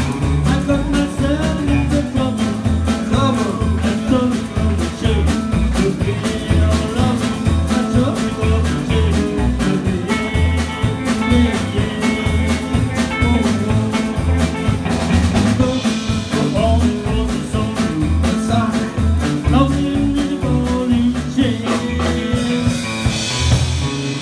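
Live rock 'n' roll band playing: an upright double bass plucked in a steady pulsing beat under electric guitars and drums, with a male singer on the microphone.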